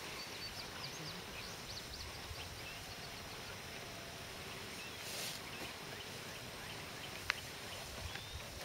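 Outdoor ambience with faint, short bird chirps in the first couple of seconds, a brief hiss about five seconds in and a single sharp click a little after seven seconds.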